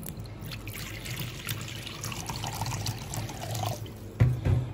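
Water pouring into a wok and splashing over a sauce mixture, then two dull knocks near the end.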